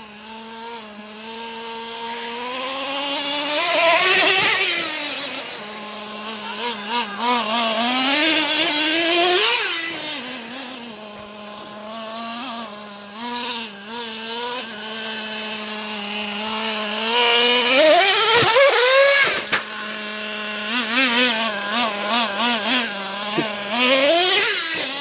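Traxxas T-Maxx nitro RC monster truck's small two-stroke glow-fuel engine revving up and falling back several times, returning to a steady idle between runs.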